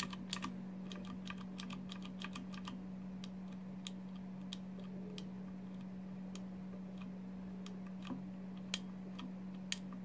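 Cherry MX keyboard switches in a switch tester pressed one after another by finger, giving light clicks at uneven intervals: the soft click of Cherry MX Whites, with the quieter Clears for comparison. The clicks come thick in the first few seconds and thin out later, with two louder ones near the end, over a steady low hum.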